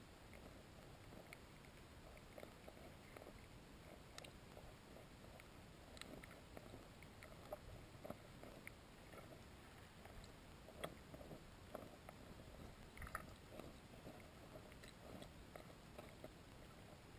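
Near silence: faint underwater ambience picked up through a submerged camera, with scattered soft clicks and a handful of sharper ticks in the second half.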